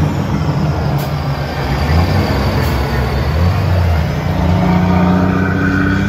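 Heavy armored police truck driving past, its large engine giving a loud, steady low drone that rises slightly in pitch about four seconds in.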